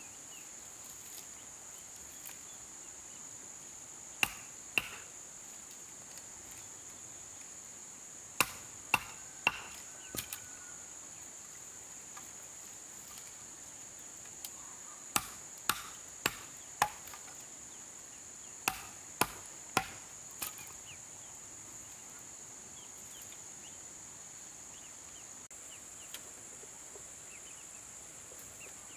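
Sharp strikes of a hand tool on wood, chopping or hammering in groups of two to four blows about half a second apart, with pauses of several seconds between groups; the blows stop after about twenty seconds. A steady high-pitched insect buzz runs underneath.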